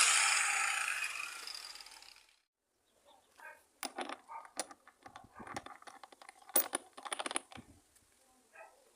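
An electric angle grinder winding down, its whirring noise fading away over about two seconds. Then comes a scatter of light metallic clicks and clinks as small metal parts are handled.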